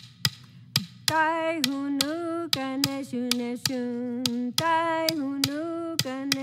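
A woman singing long held notes, keeping time with a wooden clapper stick struck against her palm at about two clicks a second; the clicks start first and the singing comes in about a second later.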